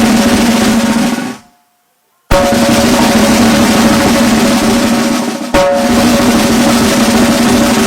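Snare drum rolls and bass drum with a sustained musical tone underneath, as at a military band performance. The sound drops out for about a second near the start, comes back abruptly, and jumps again at a sharp cut a few seconds later.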